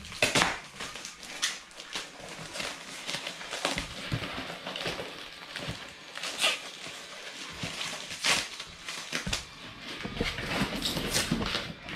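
Packaging being handled as a part is unwrapped from a white protective bag: irregular rustling and crinkling with a few sharper crackles.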